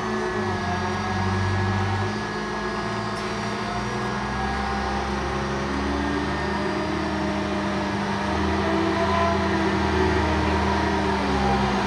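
Dr35 diesel shunting locomotive's engine running with a steady low hum as it slowly moves a train of loaded flatcars, with a few higher tones drifting in pitch. It grows slightly louder in the second half as the locomotive draws nearer.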